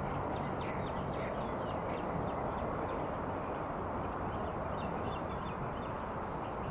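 Steady outdoor background hiss with birds chirping faintly, short high chirps scattered through, and one higher falling whistle near the end.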